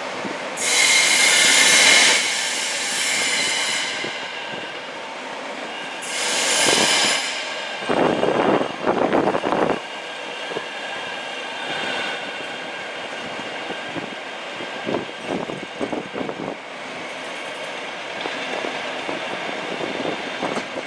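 MTR South Island Line S-train metro train running slowly along the track. Two spells of high-pitched squealing come from its running gear, the first lasting about three seconds, the second starting about six seconds in. Uneven rattling and clacking from the wheels over the track follows around eight to ten seconds in, with lighter knocks later.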